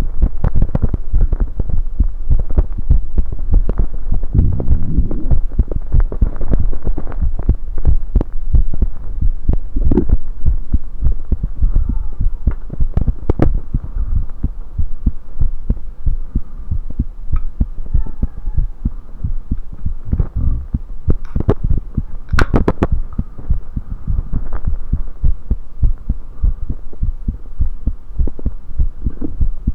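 Heartbeat heard through a USB electronic stethoscope: a steady run of dull low thumps over a hum. A few sharp clicks stand out, near ten and thirteen seconds in and twice about twenty-two seconds in.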